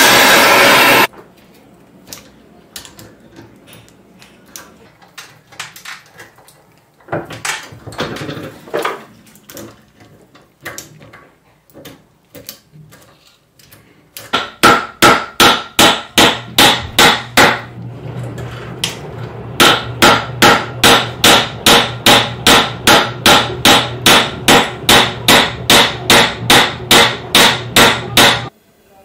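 Hammer blows on a metal chain lying on a steel block, a long steady run of sharp strikes about two to three a second from halfway through. Before that, a loud rushing noise cuts off about a second in, followed by faint clicks of the chain being handled.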